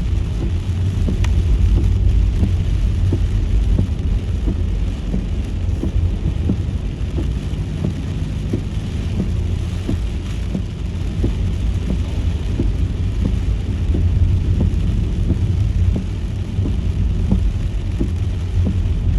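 Steady low rumble of a car driving on a wet road, heard from inside the cabin, with raindrops ticking irregularly on the car's body and windshield.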